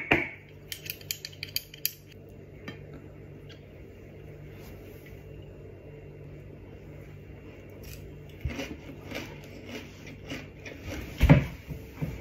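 Chopsticks clicking and scraping against a plate while tearing pieces off a crispy potato pancake, in scattered bursts with a quiet stretch in the middle and a loudest hit near the end.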